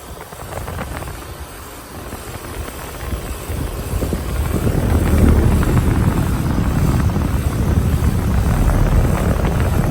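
A 2016 Keeprite four-ton central air-conditioner condenser running, its fan and compressor giving a low, steady rumble with a rattle. It grows louder about four seconds in.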